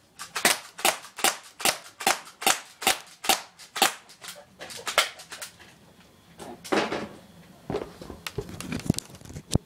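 Airsoft gun shooting BBs into a cardboard box in quick, evenly spaced shots, about two to three a second for the first four seconds. After that come fewer, irregular shots and knocks.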